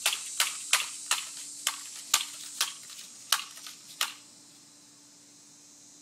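BB gun being handled between shots: about ten sharp mechanical clicks over the first four seconds, then it goes quiet.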